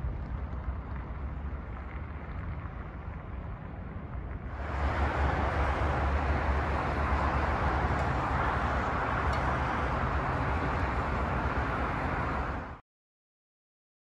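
Wind blowing on the microphone over steady road-traffic noise. It jumps louder about four and a half seconds in and cuts off suddenly near the end.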